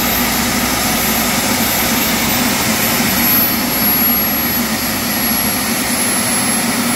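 Turbine engine of a large radio-controlled model jet running steadily and loud, a wide hiss with a high, thin whistle that dips slightly in pitch partway through.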